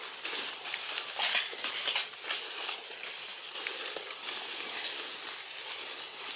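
Rustling and crackling in the leaves of the tree around a macaque, scattered short crackles over a steady high hiss.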